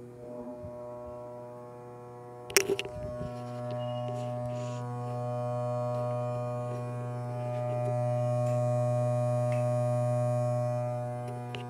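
Small brushed DC motor running on a 12 V battery and drawing about 0.3 A: a steady hum with several overtones, getting louder about four seconds in and again past the middle. A sharp click about two and a half seconds in.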